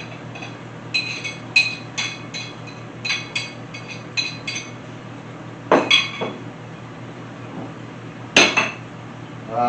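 A spoon clinking against a glass container while minced garlic is scooped in: a quick run of about a dozen light ringing clinks, then a few heavier knocks.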